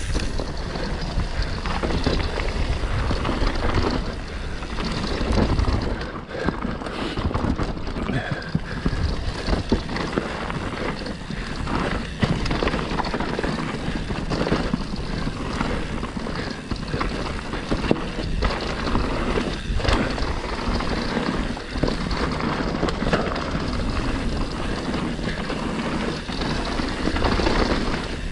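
Mountain bike riding down a dirt trail: tyres rolling on dirt and roots, with constant knocks and rattles of the chain and frame over bumps and wind rumbling on the microphone.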